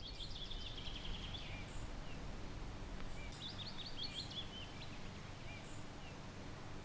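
A songbird singing two short phrases of rapid, high repeated notes, one at the start and another about three seconds in, over a faint steady background noise.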